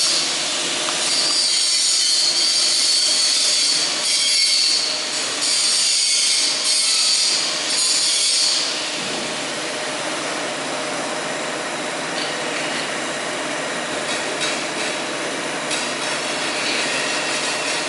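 Electric arc welding: a steady crackling hiss from the welding arc, louder through the first half and a little quieter from about halfway on.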